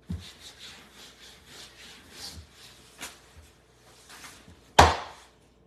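A hand rubbing across a wooden tabletop in a run of scraping strokes, with a sharp tap about three seconds in and a loud thump near the end.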